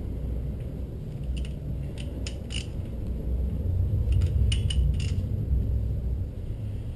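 Hand tools clinking on the metal of a Nissan VQ35DE engine's timing-chain end as a ratchet and wrench are worked on it: two clusters of light metallic clinks, over a low steady rumble.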